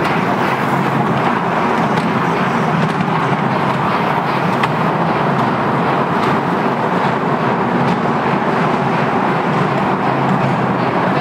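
Small ride-on train running along its track, heard from aboard as a steady, unbroken noise.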